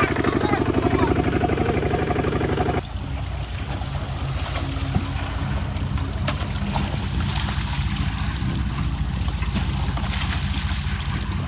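Single-cylinder diesel engine of a Kubota walking tractor running with a fast, even chug. About three seconds in the sound cuts abruptly to a slightly quieter, steady engine run.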